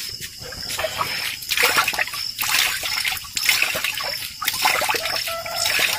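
Wet hands cleaning a dressed quail carcass in water: irregular splashing, trickling and squelching as the bird is rinsed and pulled apart.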